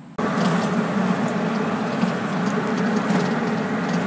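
Taxi driving along a road, heard from inside the cabin: steady engine and road noise that cuts in suddenly just after the start.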